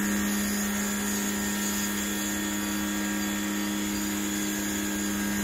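Total TGT11356 1800 W electric pressure washer running steadily on a high-pressure jet, its motor and pump giving an even hum over the hiss of the water spray.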